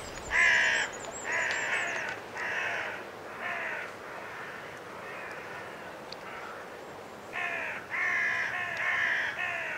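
Crow cawing: harsh calls in two runs, about four spaced calls in the first few seconds and a quicker run of four or five near the end.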